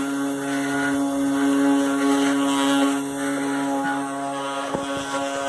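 Desktop 3-axis CNC router milling scrap wood: the spindle gives a steady, even-pitched whine with a rough cutting noise over it, and the machine keeps working without pause. A single sharp click comes near the end.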